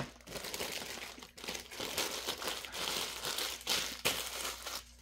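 Clear plastic packaging bag crinkling and rustling as it is handled, in irregular crackles with brief pauses.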